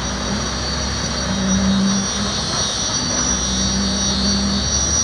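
Concrete pump's diesel engine and hydraulics running steadily during a pour, a loud drone whose tone swells twice, about two seconds apart, over a constant low hum and a high whine.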